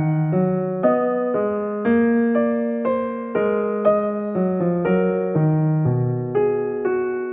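Soft background music: a gentle electric piano playing slow chords, one every half second or so.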